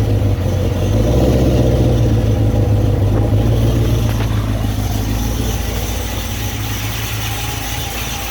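Cadillac CTS-V's V8 running shortly after a cold start, a loud, steady deep exhaust note that eases off gradually as the fast cold idle settles.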